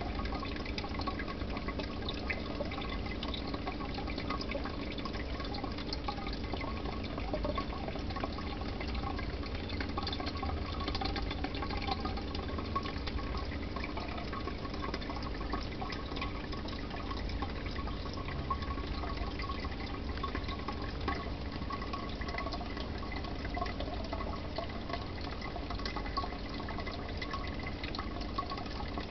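Aquarium aeration bubbling steadily: a continuous stream of air bubbles gurgling and popping at the water surface, with small crackles throughout over a low steady hum.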